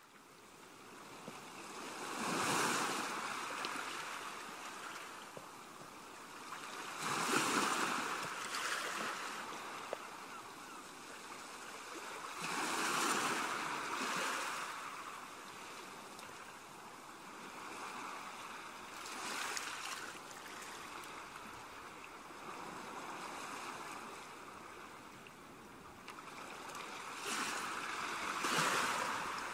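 Ocean waves washing ashore on a beach, the surf swelling and fading every five to six seconds.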